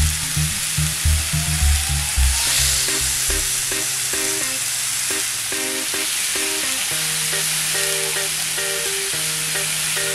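Marinated chicken pieces sizzling on a hot ridged grill pan: a steady frying hiss. Background music plays over it, its pulsing beat dropping out about two seconds in and giving way to held bass notes and a melody.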